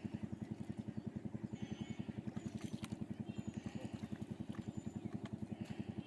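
A small engine running steadily with an even low thumping of about nine beats a second, with a few short bird chirps above it.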